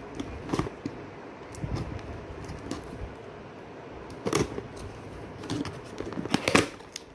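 Seal stickers being peeled off a cardboard camera box and the box being handled to open its flap: scattered crackles and clicks, with sharper snaps about four seconds in and again near the end.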